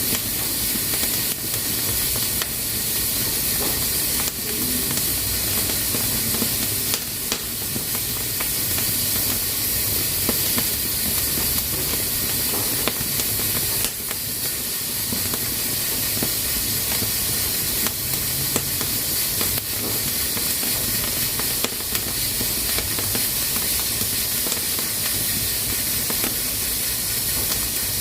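Pressure cooker letting off steam through its valve: a steady hiss, with scattered short clicks throughout.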